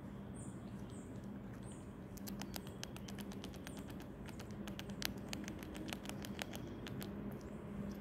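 Eastern chipmunk gnawing at a hard nut shell held in its teeth: a quick, irregular run of sharp ticks and clicks that starts about two seconds in and stops about a second before the end.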